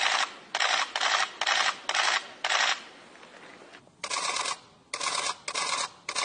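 Press photographers' cameras firing rapid bursts of shutter clicks, each burst about half a second long. The bursts follow one another closely, stop for about a second midway, then resume.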